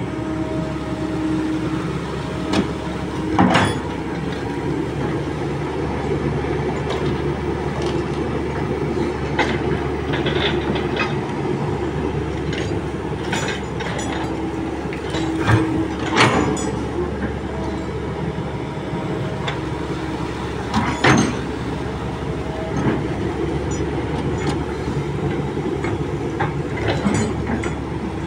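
Kobelco SK200 hydraulic excavator's diesel engine running steadily under load while digging a ditch in wet mud, with a steady tone that comes and goes as the arm works. Several sharp clanks from the bucket and its linkage, the loudest about three, sixteen and twenty-one seconds in.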